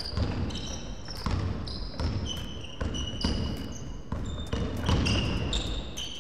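Basketball being dribbled on an indoor court, a bounce about every half second, with short high squeaks of basketball shoes on the court floor.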